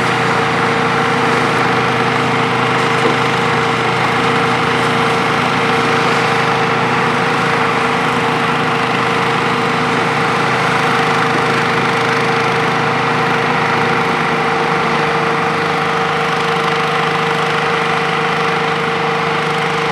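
Hitachi ZX 470-3 high-reach demolition excavator's diesel engine and hydraulics running steadily, with a constant tone over the engine noise. About 14 seconds in, the lowest part of the hum drops away.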